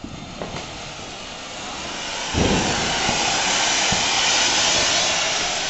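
Ground fountain firework (a Diwali "flower pot") hissing as it sprays sparks. It builds steadily at first, then surges louder about two seconds in and holds a strong, steady hiss.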